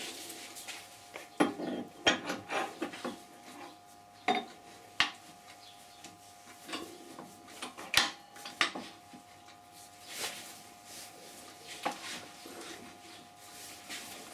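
Wood lathe running with a faint steady hum while a turning tool cuts a spinning green-wood blank in short, irregular passes, giving scattered sharp clicks and brief scraping.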